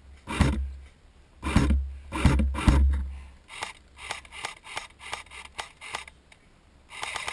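Loud scraping and rubbing thumps of gear or clothing against the camera microphone, then a run of fainter ticks. Near the end a rapid, steady rattle of an automatic airsoft gun firing begins.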